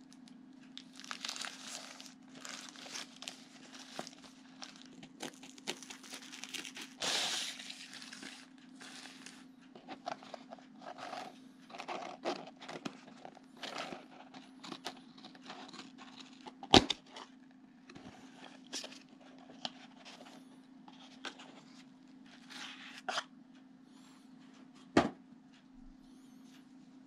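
A parcel being unwrapped by hand: plastic wrapping and tape ripping and crinkling, a cardboard box being handled and opened, and paper wrapping rustling. Two sharp knocks stand out in the second half.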